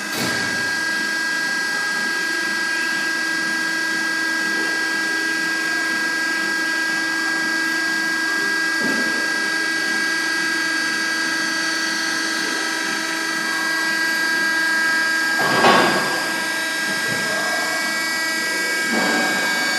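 Hydraulic baling press running: its motor and hydraulic pump give a steady whine made of several fixed tones. A short burst of noise about three-quarters of the way through is the loudest moment, with a weaker one near the end.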